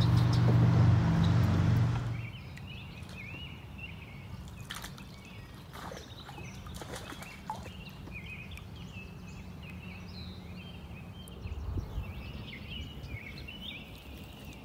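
Small birds chirping and calling in a busy, overlapping chorus. For the first two seconds a loud low rumble with a steady hum covers them, and it cuts off abruptly.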